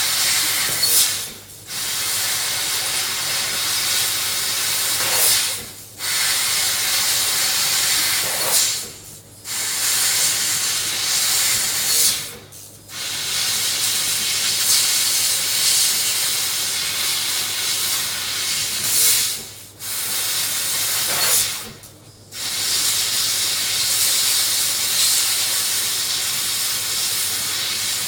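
Laser cutting machine at work: a steady hiss of air blowing from the cutting head, which cuts out briefly about six times as the machine pauses between cuts. A faint steady hum runs underneath.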